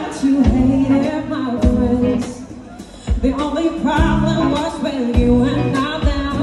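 Song with a singing voice over a steady drum beat; it briefly drops quieter a little past the middle.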